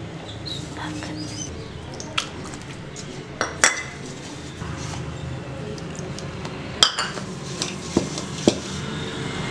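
Hand mixing damp rice flour in a metal bowl: a soft rubbing with about half a dozen sharp metallic clinks against the bowl. The flour is being worked with sprinkled water until it turns crumbly for puttu.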